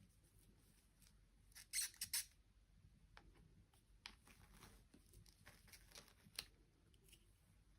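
Quiet handling sounds: a quick cluster of three or four sharp clicks or snips a little under two seconds in, then scattered light ticks and one more sharp click near the end.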